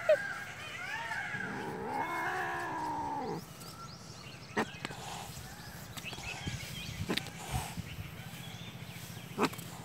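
Domestic cat giving a long, wavering growl-yowl for about three and a half seconds, a defensive warning cry at a perceived threat. It then falls quiet, and three sharp clicks follow.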